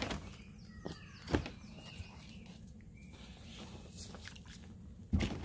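Several short bird chirps that glide in pitch, with a soft knock about a second and a half in and a louder thump near the end.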